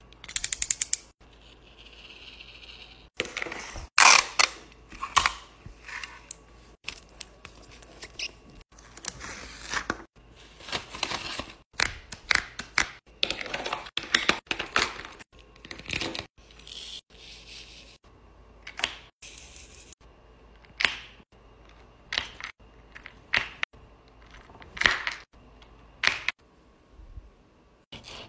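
Close-up diamond painting handling sounds: an irregular run of short crackles, clicks and rustles as plastic film and a bag of resin drills are handled, with drills poured into a plastic container about halfway through.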